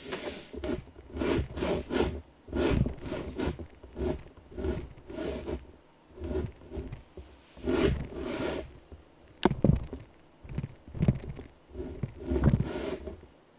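Camera handling noise: fingers and clothing rubbing and scraping against the camera and its mount in irregular bursts, with a few sharper knocks about nine to ten seconds in.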